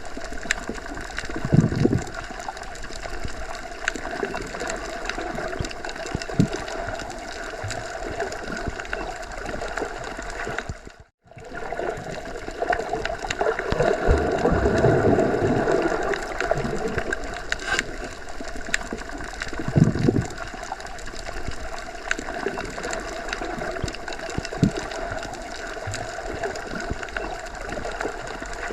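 Underwater ambience: a steady hiss of water with a few faint steady hums in it, and now and then a low surge or thud. It cuts out suddenly for a moment about eleven seconds in, then carries on as before.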